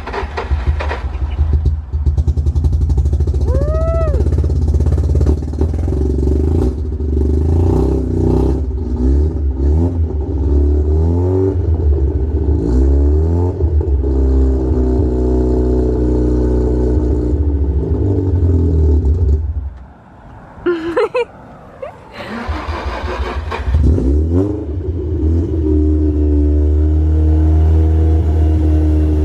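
Car engine running, the revs rising and falling unevenly. It drops out about twenty seconds in and is running again a couple of seconds later.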